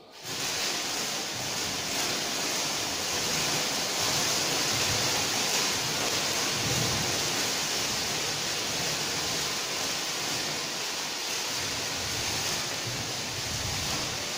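Thermite mixture of aluminium powder and iron(III) oxide catching from its magnesium ribbon fuse and burning as a fountain of fire and sparks: a loud, steady hiss that starts suddenly and holds throughout.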